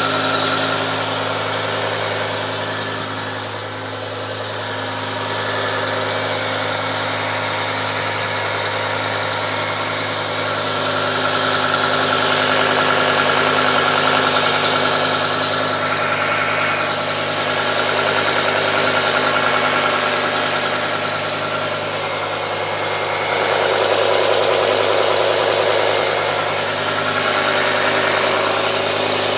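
BMW E60 M5's 5.0-litre V10 idling steadily from a cold start. The diesel-like clatter the owner puts down to the VANOS units is not heard in this cold state.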